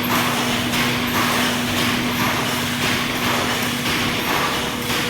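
Hydraulic metal baler running: a steady motor-pump hum under a rushing, clattering machine noise that swells and fades irregularly.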